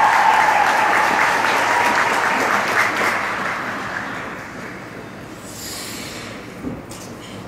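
Audience applauding, dying away about four to five seconds in, followed by a brief high hiss.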